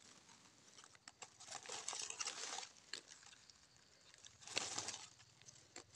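Dry leaf litter rustling and crackling as hands and a knife work small mushrooms free of the forest floor: two short spells of rustling, the first about a second in and a shorter one later, with a few light clicks.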